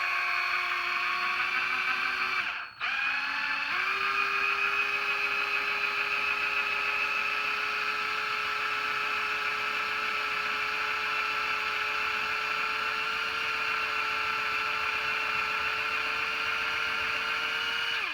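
Small electric drill with a 1/16-inch bit drilling out the rivet of a die-cast toy car, running with a steady whine. It stops for about a second roughly three seconds in, then starts again a little higher in pitch and runs steadily until it cuts off near the end.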